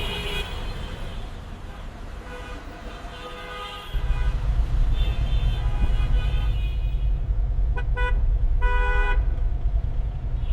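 Car horns honking in a traffic jam: a string of honks of different pitches and lengths, with two quick toots followed by a longer, louder honk near the end. A heavy low rumble comes in suddenly about four seconds in and continues under the horns.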